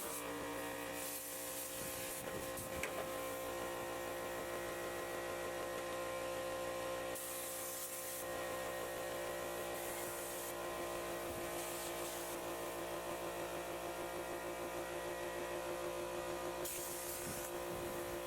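A power tool running steadily while cutting out rusted sheet metal: an even hum of several steady tones, with short bursts of hiss a few times.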